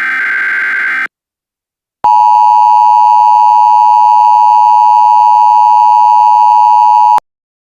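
Emergency Alert System tones: the last of the SAME header data bursts, a harsh electronic screech, ends about a second in. After a second of silence the EAS attention signal follows, a steady loud beep held about five seconds that cuts off suddenly.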